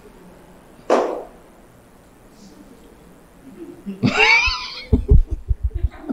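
A loud, wavering vocal cry that slides up and down in pitch, about four seconds in, after a short sharp breathy burst about a second in; a quick run of low thumps follows near the end.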